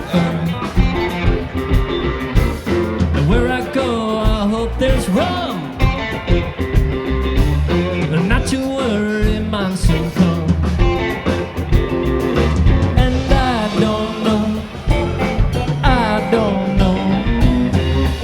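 Live rock band with electric guitars, bass, keys and drums playing an instrumental passage: a lead line with bending notes over a steady drum beat and bass.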